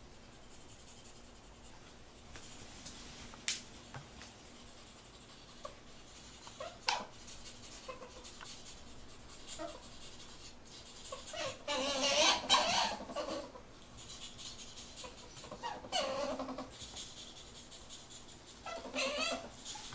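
Ferrets vocalising during mating: three bursts of wavering, rapidly pulsing calls, the longest about halfway through, with shorter ones later and near the end. A few sharp clicks come earlier.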